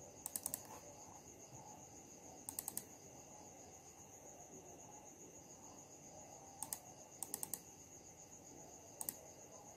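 Computer mouse clicking as folders are opened: about five quick bursts of three or four faint clicks each, spread out, over a faint steady high-pitched tone.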